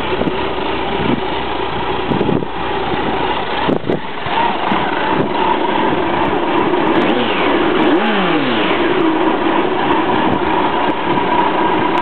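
Kawasaki Concours 14 motorcycle's inline-four engine running through its quiet muffler, mostly steady, with a quick blip of the throttle that rises and falls in pitch about seven seconds in.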